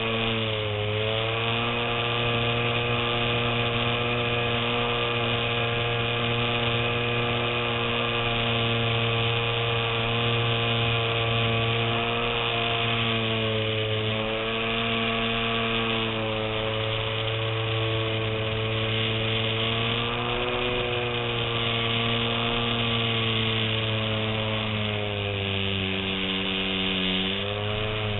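Electric motor and propeller of a radio-controlled model plane in flight, heard close up from a camera on the plane over rushing wind: a steady buzzing drone whose pitch dips briefly about 14 and 20 seconds in and falls away near the end.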